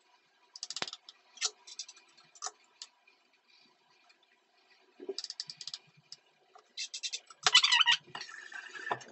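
Kitchen knife cutting avocado on a cutting board: quick runs of sharp taps and clicks, the loudest run near the end. A short rush of tap water follows.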